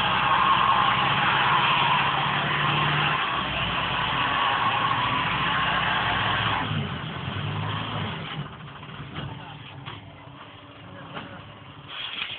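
Lorry engine revving hard under load as its drive wheels spin on snow, a steady engine note with loud tyre hiss. About six and a half seconds in it eases off and the sound drops to a quieter idle.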